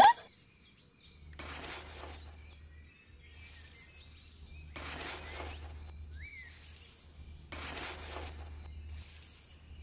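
Soil and gravel scooped with a small metal hand scoop and tipped into a plastic toy trailer, three rattling pours about three seconds apart, after a brief sharp sound at the very start. A bird chirps once in the background.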